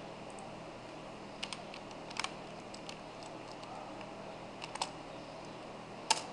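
A few scattered computer keyboard keystrokes, some in quick pairs, the loudest near the end, over a steady faint hiss.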